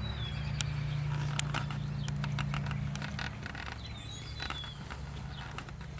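Hoofbeats of a ridden horse on dirt arena footing: a run of irregular short thuds and clicks over a steady low hum, with a bird chirping briefly near the start and again about four seconds in.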